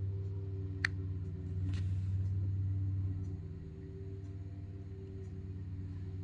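Engine of a machine running steadily, a low drone that swells louder for a couple of seconds before settling back, with one sharp click about a second in.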